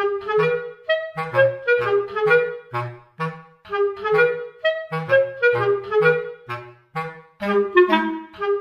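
Instrumental background music: a steady run of short melodic notes over a repeating bass line.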